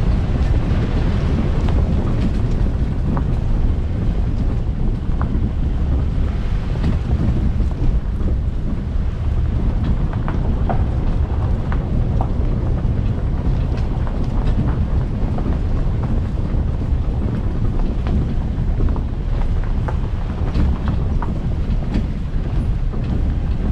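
Wind buffeting the microphone: a steady, loud low rumble, with faint scattered clicks.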